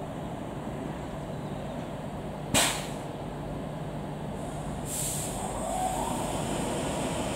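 Virgin Trains Class 390 Pendolino electric multiple unit standing at the platform with a steady hum, broken about two and a half seconds in by a short, sharp blast of air. From about five seconds a steady hiss sets in with a faint rising whine, and the sound slowly grows louder as the train gets ready to depart.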